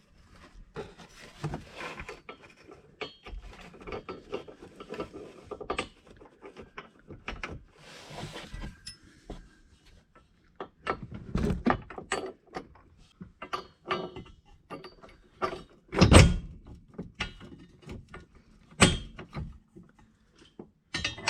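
Scattered clicks, knocks and rustles of hands and bolt hardware being worked up through a skid plate, with two louder thuds in the second half.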